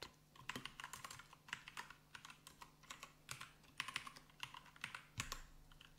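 Faint typing on a computer keyboard: irregular keystrokes, some in quick runs, as lines of code are entered.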